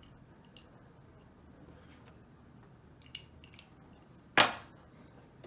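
Yellow LEGO bricks being handled and pressed together: a few faint clicks, then one much louder sharp clack about four seconds in.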